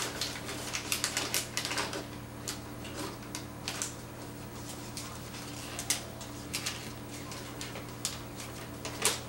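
Gift box and its wrapping paper being handled and opened: irregular crinkles and crisp clicks, busiest in the first couple of seconds and again near the end.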